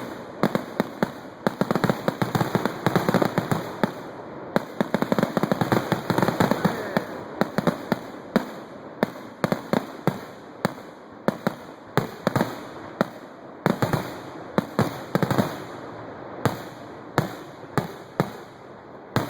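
Fireworks going off: a dense run of bangs and crackling over the first several seconds, then single bangs about once a second to the end.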